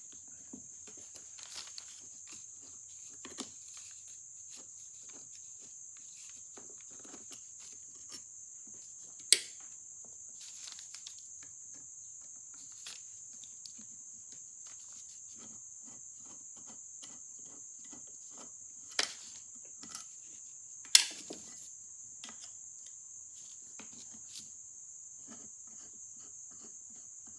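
Small metal clicks and taps of screws, screwdriver and motor parts being handled while a phonograph motor casting is unscrewed, with three sharp clicks, about nine, nineteen and twenty-one seconds in, that are the loudest. A steady high hiss runs underneath.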